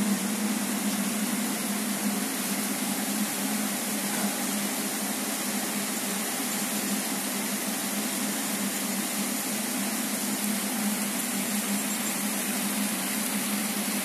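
Heavy downpour: a steady, even hiss of rain.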